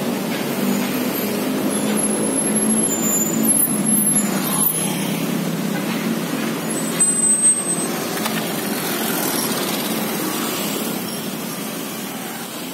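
Busy road traffic passing close by: motorcycles and cars running along in a steady mix of engine noise. There is a short high-pitched squeak about seven seconds in.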